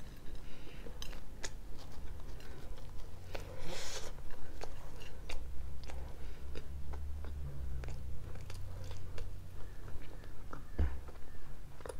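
Close-miked mouth sounds of a person chewing pizza: wet clicks and smacks between bites, over a steady low hum. A brief louder rush of noise comes about four seconds in.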